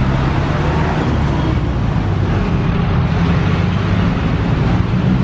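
Steady road traffic: tyre and engine noise, with the low, even hum of a motor vehicle's engine running close by.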